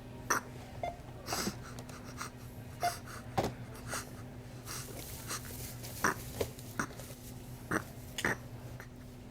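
Faint, scattered short snorts and breaths of someone holding in laughter, over a steady low electrical hum.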